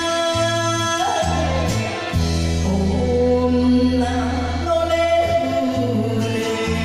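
A woman singing an enka song into a karaoke microphone over the karaoke backing track, holding long notes.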